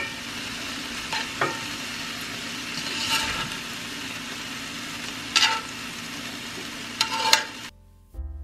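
Venison and peppers sizzling in a hot cast iron skillet, with metal tongs clinking and scraping against the pan about six times as the food is lifted out. Near the end the sizzle cuts off suddenly and soft piano music begins.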